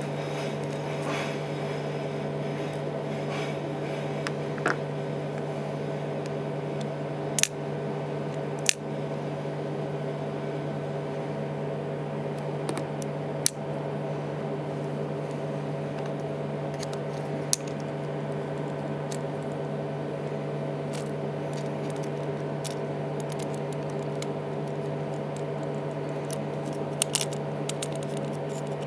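A few sharp small clicks and taps, from tools and parts being handled during an iPhone 3GS battery replacement, over a steady low electrical hum.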